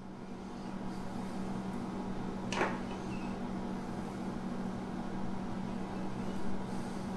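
Steady hum of a bathroom ventilation fan over a faint hiss, with a brief swish about two and a half seconds in.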